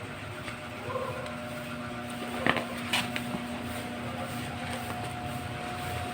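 Steady low background rumble with a faint hum, broken about halfway through by two sharp clicks less than half a second apart.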